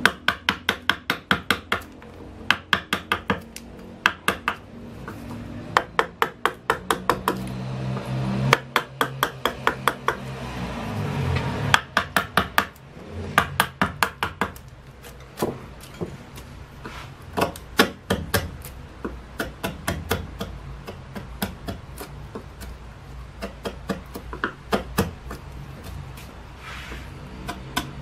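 Wooden carving mallet tapping a chisel into cedar wood: quick runs of sharp taps, about four to five a second, with short pauses between runs. The taps grow lighter and sparser in the second half.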